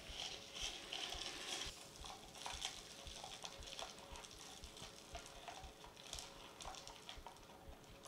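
Lye being added a little at a time to ice water and stirred: a faint hiss, loudest over the first two seconds, with many small clicks and taps.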